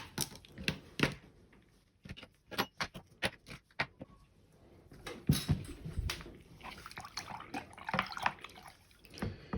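Small plastic mouse parts being handled and set down: a few separate sharp clicks and knocks at first, then a denser run of clattering and rustling from about five seconds in.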